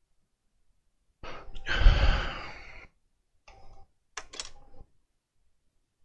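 A long frustrated sigh, breath blowing close to the microphone, followed by a few brief clicks and handling noises.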